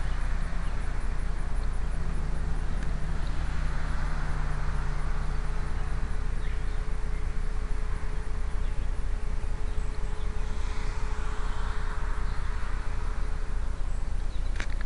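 Steady low rumble and hiss on a tiny keychain spy camera's microphone as the camera is carried about, with a faint steady hum.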